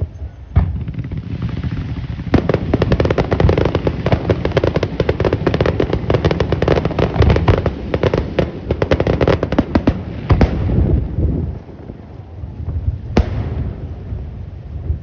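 Fireworks display going off: a bang, then about eight seconds of dense, rapid crackling over a low rumble, ending in a loud bang, with one more sharp bang a few seconds later.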